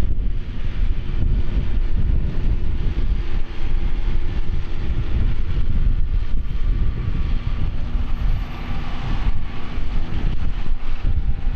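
Tractor engine running steadily while ploughing, with wind buffeting the microphone.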